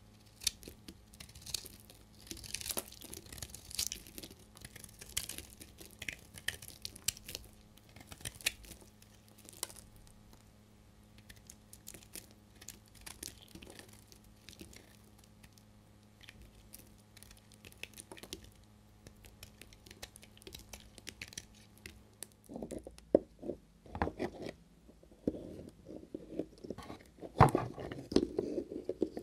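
Snap-off utility-knife blade cutting and shaving dry bar soap: crisp, irregular crackling and scraping as flakes break off. About three-quarters through this gives way to duller, louder knocks and rustling as hard soap bars are handled in a pile.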